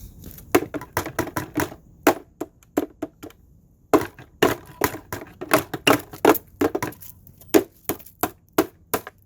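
Fast, irregular run of sharp blows cracking and crushing a Fantom canister vacuum's plastic housing, pausing briefly about three and a half seconds in before the blows resume.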